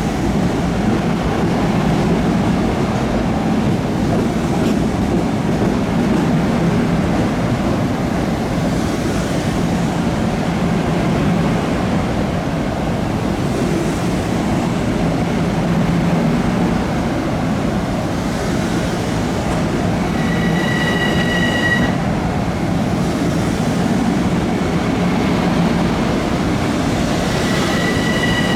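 Long Island Rail Road commuter train running past with a steady loud rumble of wheels on rail. A high, steady wheel squeal rings out briefly about two-thirds of the way through and again near the end.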